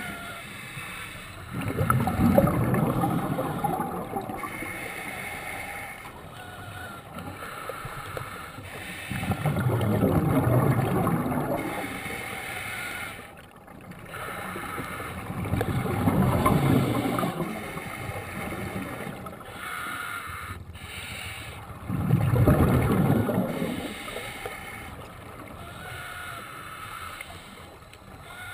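Scuba diver breathing through a regulator underwater: four rushes of exhaled bubbles about six seconds apart, with a quieter hiss between them.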